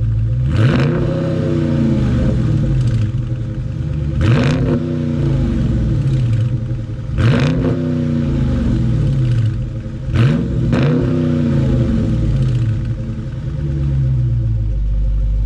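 2020 Dodge Charger Scat Pack's 6.4-litre HEMI V8 on its stock exhaust, idling and revved four times at a standstill, each rev a quick rise and fall in pitch. It is quite loud for a stock car, peaking near 98 dB on a phone meter.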